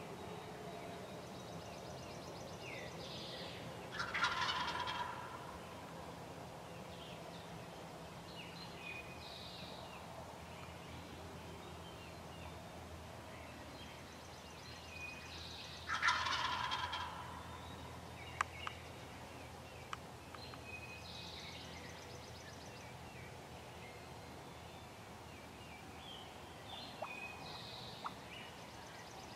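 A wild turkey gobbler gobbling twice, about four seconds in and again some twelve seconds later, each gobble a rattling call lasting about a second. Songbirds sing faintly in the background.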